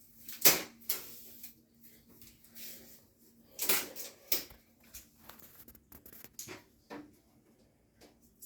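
Several irregular knocks and clatters of things being handled in a kitchen, the loudest about half a second in, over a faint steady hum.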